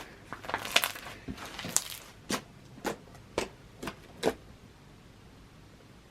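Sticky slime being squeezed and handled, giving a run of small wet clicks and crackles. The last five clicks come about twice a second and stop a little after four seconds.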